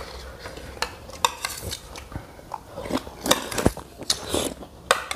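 Spoons and forks clinking and scraping against plates as people eat, a string of irregular light clicks.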